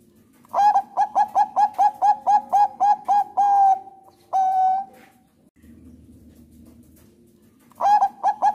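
Zebra dove (Thai 'perkutut bangkok' strain) singing: a quick run of about a dozen short cooing notes, about four a second, ending in two longer drawn-out coos. After a pause, another run begins near the end.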